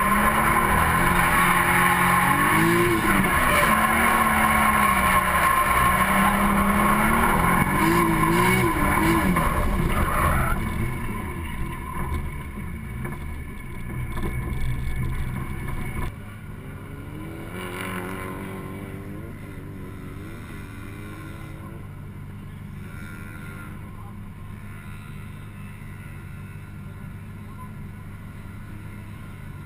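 Drift car's engine revving hard, rising and falling in pitch, with the tyres squealing as it slides in tandem. About ten seconds in, the revs and noise drop away, and the engine runs at low revs as the car rolls slowly off the track.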